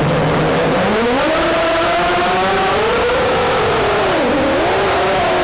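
Drone's motors and propellers whining, heard from the onboard camera. The pitch is low at first, climbs steeply about a second in as the throttle comes up, wavers, then dips briefly and recovers near the end. A rushing wind noise on the microphone lies under it.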